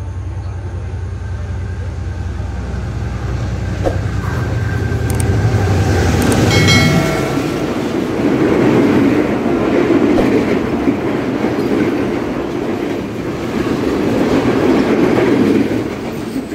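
Diesel-hauled passenger train running through a station. The locomotive's low engine rumble grows over the first six seconds, with a brief high ringing tone as it comes by about halfway. After that comes the steady loud running noise of the carriages' wheels on the rails.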